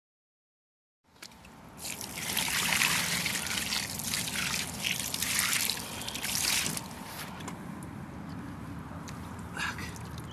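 Water poured from above onto two carp lying on a wet unhooking mat, splashing and trickling over the fish. It starts about a second in, after silence, is heaviest for the next few seconds, then eases to a lighter trickle.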